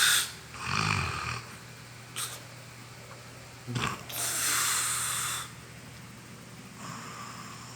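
A person snoring loudly: a low snore about a second in, a short snort just before four seconds, then a long breathy exhale lasting about a second and a half.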